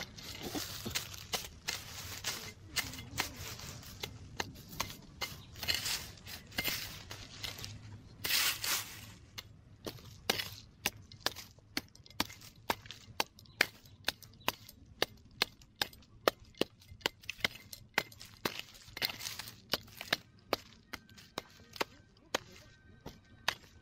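A small hand digging hoe chopping into hard, dry soil. Noisier scraping of earth comes first, then sharp strikes about two a second for the rest of the time.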